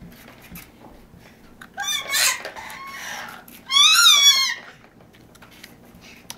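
A baby's high-pitched happy squeals, twice, about two and four seconds in; the second squeal wavers up and down in pitch.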